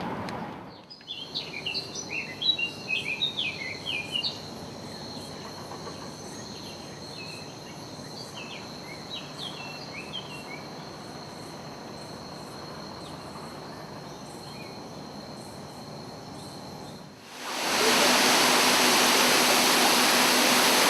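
Birds chirping over a steady, high-pitched insect drone. About 17 seconds in, this cuts to the loud, steady rush of a large artificial indoor waterfall.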